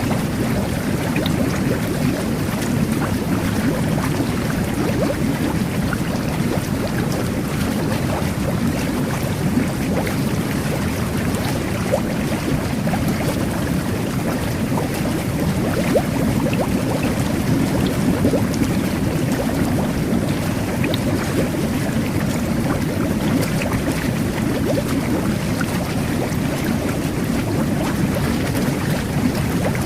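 Jet bath (jacuzzi) running: a steady churning rush of bubbling water from the jets, with small pops and splashes scattered through it.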